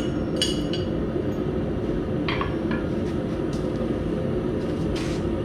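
A hammer strikes the steel nail header once with a metallic ring, knocking the freshly forged nail loose, then a couple of lighter metallic clinks follow about two seconds later. A steady low rumble runs underneath.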